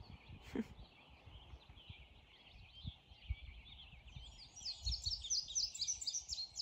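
Wild birds singing in the morning woods: scattered calls at first, then about four seconds in a rapid run of short, repeated chirping notes grows louder. A low rumble on the microphone runs underneath.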